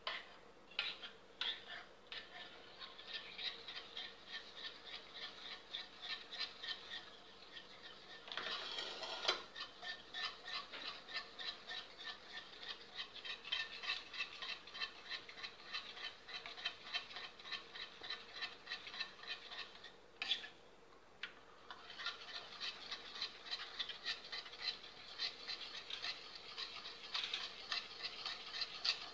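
A spoon stirring in a bowl, ticking and scraping against its side in a quick, even rhythm, with a short pause about two-thirds of the way through. It is dissolving nattu sakkarai (unrefined cane sugar) into thick colostrum milk.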